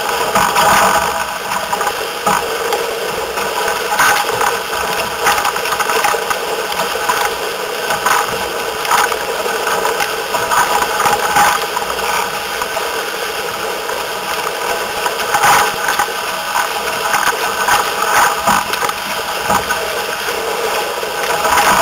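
Wind buffeting the microphone of a deck-mounted camera on an F16 sailing catamaran under way, with a steady rush of water and irregular rattling.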